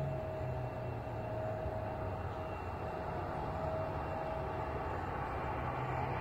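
Jet aircraft engines running steadily: an even rumble with a constant whine over it.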